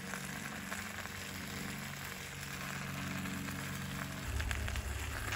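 Chicken sizzling in a cast-iron Dutch oven over hot coals: a steady hiss. A low steady hum sits underneath and drops lower about four seconds in.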